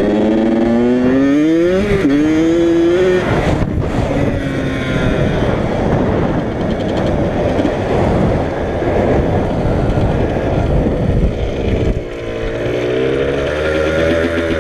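Yamaha YZ85 two-stroke dirt bike engine revving up as it accelerates, its pitch climbing over the first few seconds, with a brief break about four seconds in. It then runs hard under a heavy rush of wind on the microphone, and its pitch climbs again near the end.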